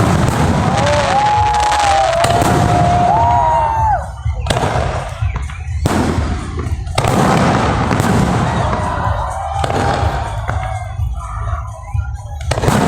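Fireworks salute: a series of loud booms every second or two, with crackling between them.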